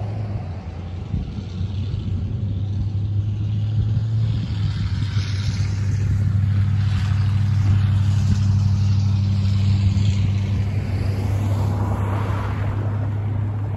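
Diesel freight locomotive engine rumbling steadily as the train approaches the crossing, growing louder through the middle. A car passes near the end.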